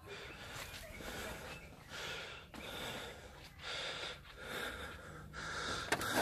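A person breathing heavily close to the microphone, a steady run of audible breaths about one a second.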